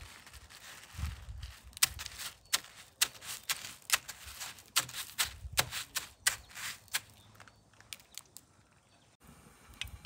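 Crushed cornflakes crunching and crackling as a batter-coated corn dog on a wooden skewer is rolled and pressed through them in a metal tray: a quick irregular run of sharp, crisp crackles that thins out after about seven seconds.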